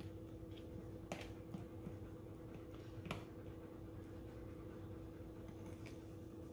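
A metal spoon working wet coffee grounds in a Toddy cold brew system's plastic brewing container, making scattered faint clicks and scrapes, two a little clearer about one and three seconds in. A steady faint hum runs underneath.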